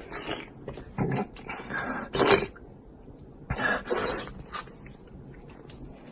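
A person eating spicy hotpot beef tripe close to the microphone: about six short, noisy mouth and breath sounds, the loudest a little over two seconds in.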